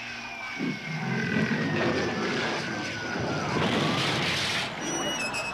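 Jet airplane flyover sound effect: an engine whine falling steadily in pitch over a rumbling roar, with a rush of noise about four seconds in.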